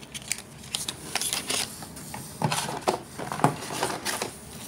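Hands rummaging in a cardboard box of cosmetics, making a string of short clicks and rustles as packaged items are handled and moved about.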